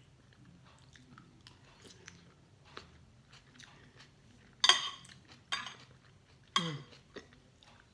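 Spoon and fork scraping and clicking on a ceramic plate while rice and milkfish are scooped up, with soft chewing sounds. Three louder sharp sounds come about a second apart, a little past halfway.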